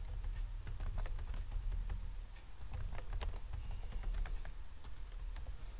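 Computer keyboard being typed: an irregular run of quick key clicks, over a low steady hum.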